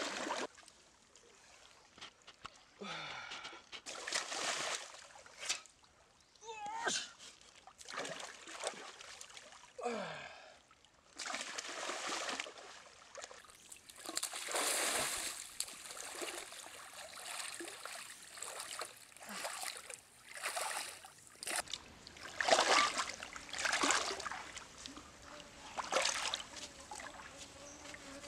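Stream water splashing and sloshing as a person wades through it, in irregular bursts a second or two apart over a steady trickle.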